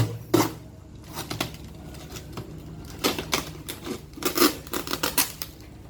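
Packing tape on a shipping box being cut and pried open with a knife: irregular crackling and scraping clicks, coming in two denser clusters about three and four and a half seconds in.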